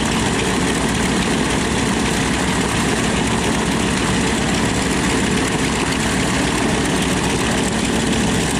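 Twin Wright R-2600 radial engines of a North American B-25 Mitchell bomber idling steadily, propellers turning.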